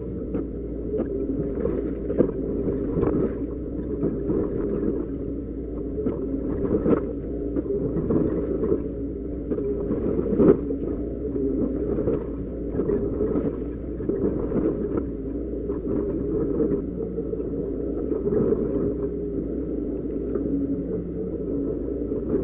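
Doosan DX140 excavator's diesel engine running steadily under load, heard from inside the cab, with scrapes and knocks as the bucket digs into rocky soil and stones tumble; the sharpest knock comes about ten seconds in.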